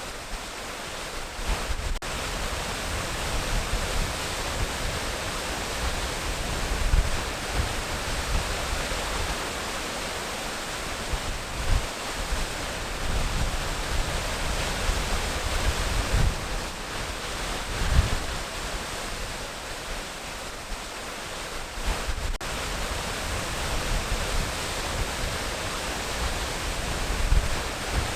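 Waterfall rushing with a steady, even hiss of falling water, with irregular low rumbles coming and going underneath.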